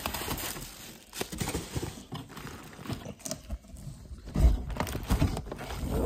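Unpacking noise: cardboard and plastic wrapping rustling and scraping as the dehumidifier is handled in its box, with scattered clicks and a few heavier thumps about four to five seconds in.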